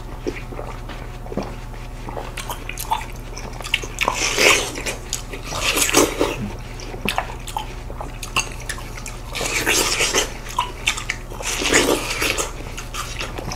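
Two people biting into and chewing slices of seedless watermelon, the bites and chews coming in bursts every few seconds.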